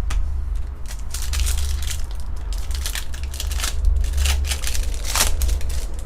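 Foil wrapper of a trading-card pack crinkling and tearing as the pack is ripped open, a fast irregular crackling that peaks a little past five seconds in.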